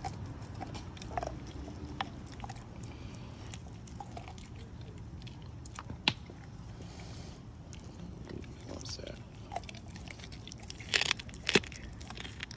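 An American Pit Bull Terrier biting and chewing a slab of raw meat held in a hand, with scattered sharp crunching clicks. The loudest bites come in a quick cluster near the end.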